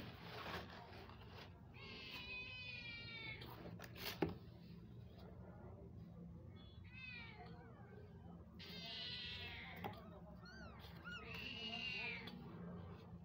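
Mother cat and her newborn kittens mewing: a few high-pitched drawn-out cries mixed with short chirping calls, and a single knock about four seconds in.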